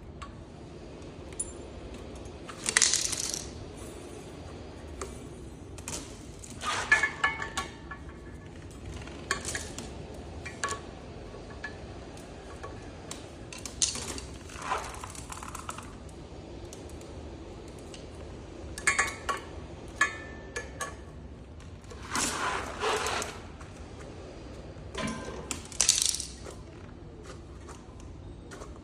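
Metal tools and small metal parts clinking and clattering every few seconds as they are handled and set down, with short scraping rattles in between.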